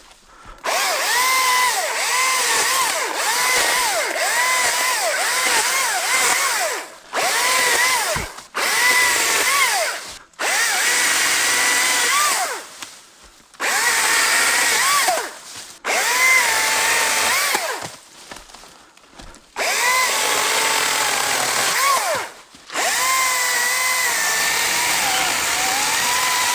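Battery-powered ECHO DCS-2500T top-handle chainsaw cutting in about eight bursts of a few seconds each. Its electric whine dips in pitch each time the chain bites and rises again as it frees.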